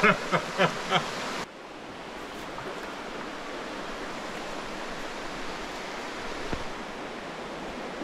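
Steady rush of river water running over rocks in a shallow stream, after a few short loud sounds in the first second or so.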